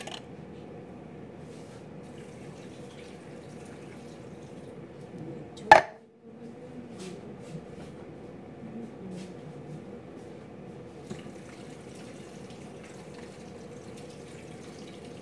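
Water pouring from a plastic pitcher into a large steel stockpot, in the last few seconds. Before it comes one sharp clunk about six seconds in, over a steady low background hum.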